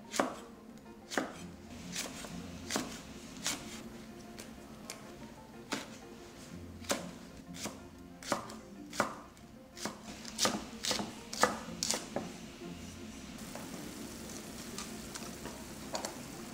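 Chef's knife slicing chili peppers and green onion on a wooden cutting board: irregular sharp knocks of the blade striking the board, about one or two a second. The knocks stop about three quarters of the way through, and a steady hiss follows.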